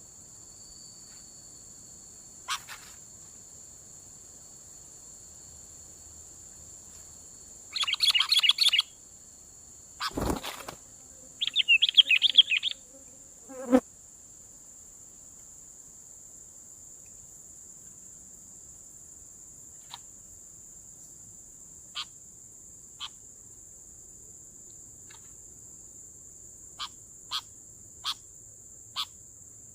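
Sooty-headed bulbuls (kutilang) giving two bursts of quick bubbly chattering calls, about eight and twelve seconds in, with a sharp thump between them. A steady high insect drone runs underneath, with scattered short ticks later on.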